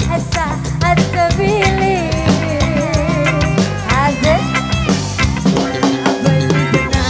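Live rock-dangdut band played loud through a large outdoor PA system, heard from well back in the crowd: a driving drum-kit beat and bass under a bending, wavering melody line, with cymbals coming in about five seconds in.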